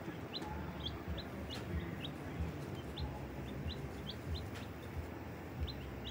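A brood of baby chicks peeping: short, high peeps, several a second at irregular intervals, over a low steady rumble.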